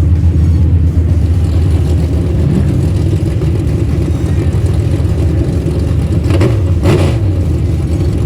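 Dirt track race car engine running hard and steady at speed, with a brief rushing noise about seven seconds in.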